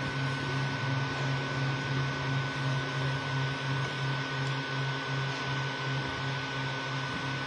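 Creality Ender 3 V2 3D printer running a print: a low, rapidly pulsing motor hum as the print head moves, over a steady fan hiss and a thin high whine.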